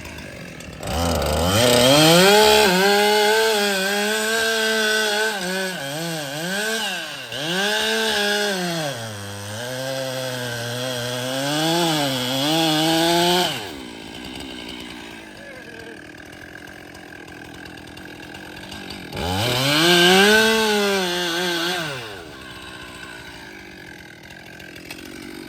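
Two-stroke chainsaw revving up to full throttle and cutting through oak for about twelve seconds, its pitch sagging and recovering repeatedly as the chain bogs under load in the cut. It then drops back to idle, and a second short burst of full throttle follows later.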